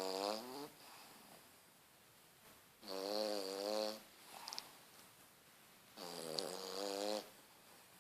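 A pet snoring steadily: long, buzzy snores about a second each, coming roughly every three seconds, with a brief faint whistle between two of them.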